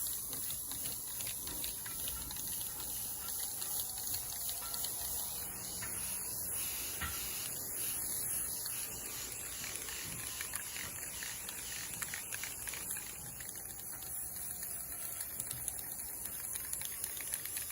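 Aerosol spray-paint can spraying black paint in a long, steady hiss.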